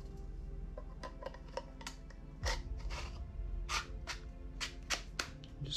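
Polymer airsoft magazine parts being handled and fitted together: a series of irregular short plastic clicks and taps.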